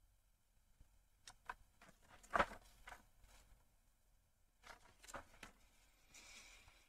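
Faint scattered clicks and taps in a quiet small room, the loudest about two and a half seconds in, followed by a soft rustle near the end.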